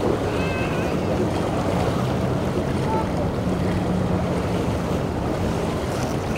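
Boat engine running steadily over the wash of waves, with wind buffeting the microphone.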